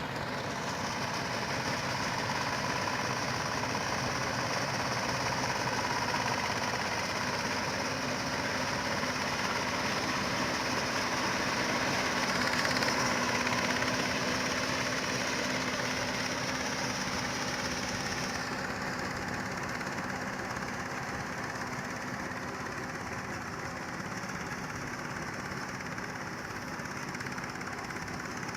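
Combine harvester running steadily in a rice field, its engine and machinery making a dense, continuous drone. A high whine in the noise drops away about two-thirds of the way in.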